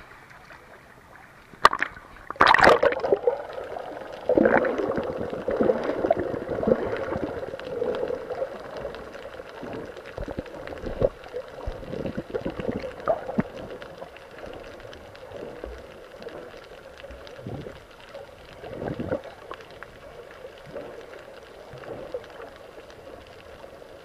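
Sea water splashing and gurgling around a snorkeller swimming, with a sharp knock and then a louder splash about two seconds in, and irregular churning after.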